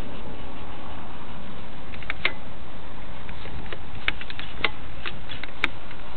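Wind buffeting a small camera's microphone: a steady rushing noise with scattered sharp clicks and taps at irregular moments.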